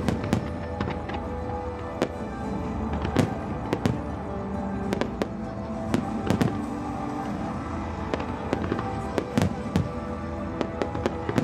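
Fireworks display: sharp bangs and crackles at irregular intervals, over music that plays steadily throughout.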